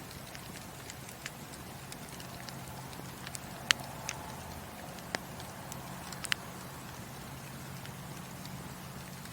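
Wood burning in a fireplace: scattered sharp crackles and pops over a steady low rumble, the loudest pops coming about four and six seconds in.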